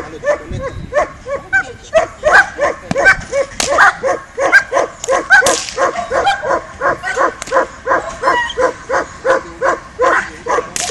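Dog barking in a rapid, steady string, about two to three barks a second, as it is held back on the leash in protection training facing a helper with a bite sleeve.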